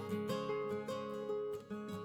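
Background music: a plucked guitar melody with strummed chords.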